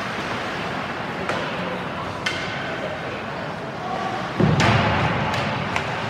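Ice hockey play heard from the stands of a rink: a steady murmur of spectators' voices, sharp clicks of sticks on the puck, one with a short ringing ping, and a loud thud about four and a half seconds in.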